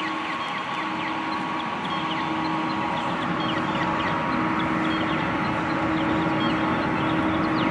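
City street ambience: a steady hum of traffic and machinery, with small birds chirping many times over it.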